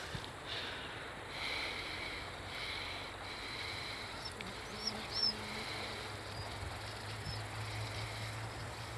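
Open-air lakeside ambience: a steady background hiss with a few short, high bird chirps about halfway through and a sharp click soon after. A low steady hum grows stronger in the second half.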